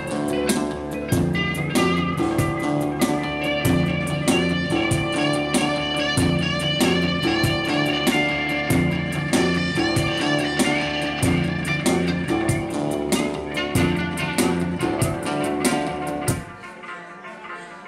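Live blues band playing at a sound check: guitar over a repeating bass riff with regular drum hits, stopping abruptly near the end.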